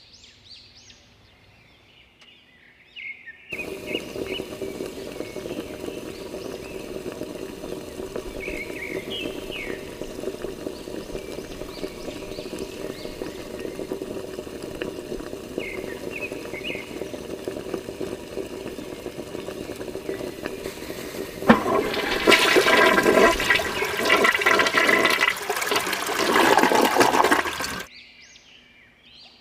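Small electric pump of a homemade toy petrol pump switching on a few seconds in and running steadily, pushing water through the hose nozzle into a toy tractor's tank. About three-quarters of the way through, the flow gets much louder, a gushing rush of water, then it cuts off suddenly.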